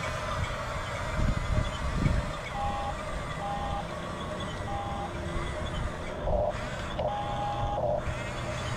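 Huina 1569 RC bulldozer running, its small electric motors whirring steadily, with a few short electronic beeps and a longer beep near the end.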